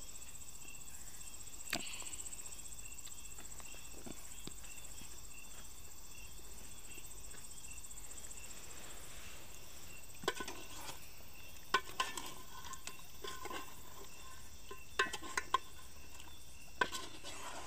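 Steady, high-pitched insect chirring in the background. From about ten seconds in, a metal spoon clinks and scrapes against the metal cooking pot as the stew is stirred.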